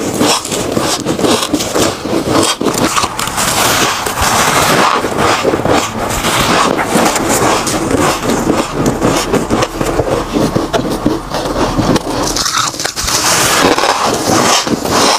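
Mouthfuls of powdery freezer frost being bitten and chewed, a dense, continuous run of squeaky crunches and crackles. The gloved hand scooping and squeezing frost from the heap adds to the crunching.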